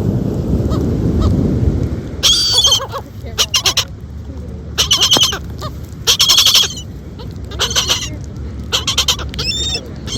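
Gulls calling over the feeding spot: about seven loud, short, high squawks, some given as quick stuttering series, over a steady low rumble.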